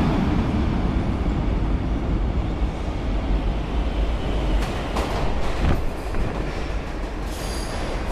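R142 subway train pulling into the station, its cars making a steady low rumble as they approach. About five seconds in, the wheels clack sharply several times, and near the end, as the cars run alongside, there is a brief high-pitched squeal.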